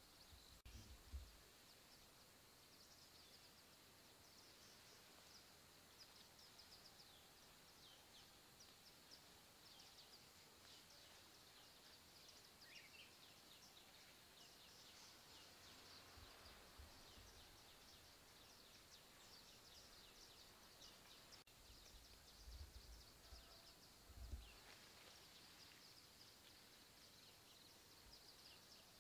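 Near silence: faint outdoor ambience of many short, high-pitched chirps throughout, with a few dull low bumps, the clearest about a second in and around 22 to 24 seconds in.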